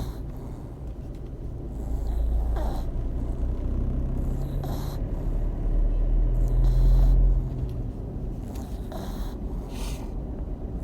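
A sleeping pet snoring, with a breathy snore about every two to three seconds, over a low rumble that swells through the middle.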